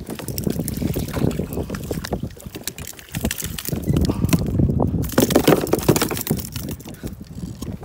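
Knocks and rattles of a landing net and gear being handled against a plastic kayak, over water sloshing and wind on the microphone, busiest and loudest in the second half.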